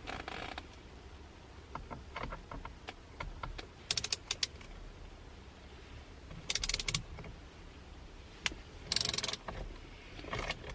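Hand ratchet clicking in three short bursts of rapid clicks, with scattered single knocks of tools in between, as a T30 Torx bolt behind a car's steering wheel is worked loose.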